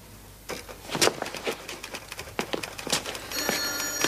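Irregular clicks of typewriter keys being struck one at a time, the loudest about a second in. Near the end a bell rings for about a second.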